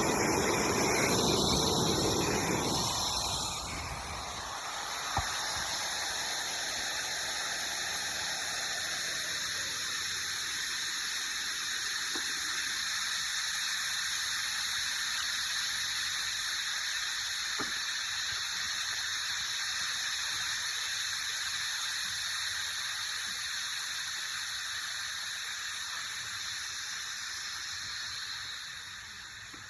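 Air rushing out of a 7-14.5 Lowboy II trailer tire through its valve stem with the valve core removed, deflating the tire. A loud, full hiss for the first few seconds, then a steady, thinner high hiss as the pressure falls, growing quieter near the end.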